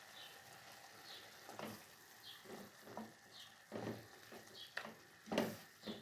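Wooden spoon stirring pieces of wild bird meat sizzling in a stainless steel pot. Irregular scrapes and knocks against the pot begin about a second and a half in, the loudest near the end, over a faint steady sizzle.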